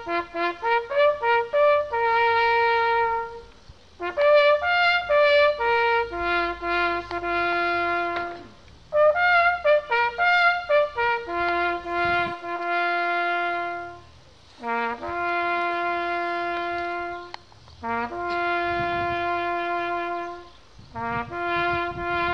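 Solo trumpet playing a slow, bugle-call-like melody, one note at a time: quick short notes at first, then long held notes with brief breaks between phrases.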